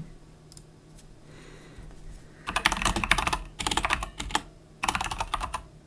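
Computer keyboard being typed on, in quick runs of key clicks that start about two and a half seconds in: a short command being entered.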